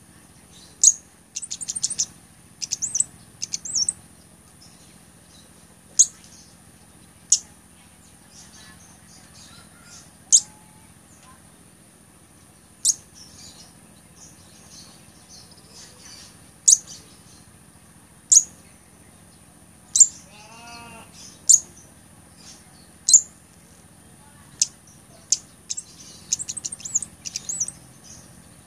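Cabai gunung, a small flowerpecker, giving sharp, very high single chip calls every second or two, with quick runs of rapid notes near the start and again near the end.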